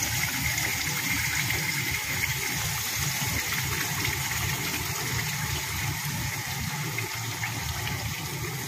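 Curd-and-spice marinade sizzling steadily in hot frying oil in a kadai after being tipped in, easing slightly toward the end.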